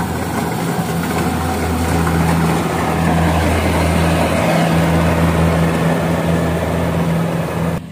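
Rice combine harvester running steadily, a constant engine hum with a broad rushing noise over it. It cuts off suddenly near the end.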